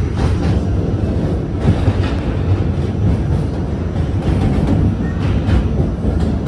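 R46 subway train running at speed, heard from inside the car: a steady low rumble of wheels on the rails, broken now and then by short clacks from the track.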